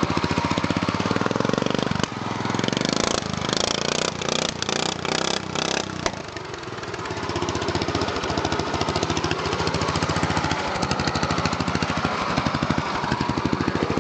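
Racing lawn mower's 14.5 hp engine, with cam and exhaust work, running with a rapid, even firing beat. About two seconds in it turns rough and choppy for a few seconds, dips briefly, then settles back to a steady run.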